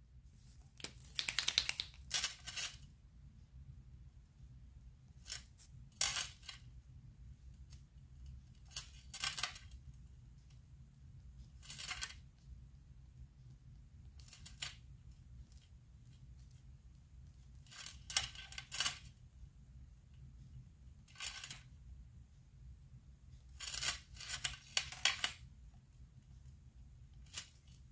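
Light clicks and taps in short clusters every few seconds, from a white Posca paint marker dabbing dots onto a card panel and being handled on a cutting mat.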